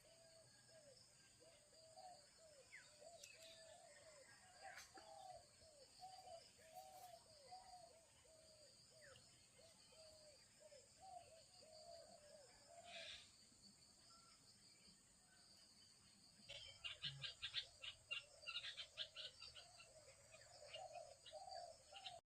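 Faint outdoor animal sounds: a short rising-and-falling call repeated two or three times a second over a steady high-pitched buzz. From about three-quarters of the way in, a run of quick clicks and rustles is louder.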